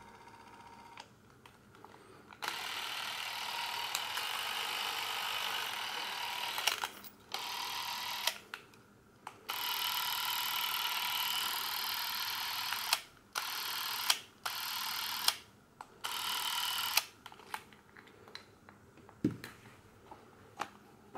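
Porst Reflex ZR 360 Super 8 camera's motor running its film drive and shutter with a steady whir, in about seven runs of one to four seconds that start and stop abruptly. A few small clicks of handling follow near the end.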